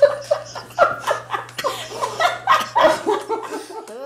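A man laughing hard in a long run of quick bursts: his trademark laugh.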